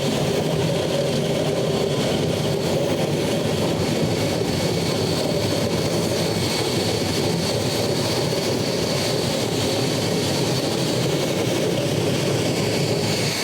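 HTC 500 triple-head concrete floor grinder running steadily, its diamond-fitted heads grinding a concrete floor, with its dust extractor vacuum running alongside. A dense, even, low-pitched grinding noise with a faint steady high whine above it.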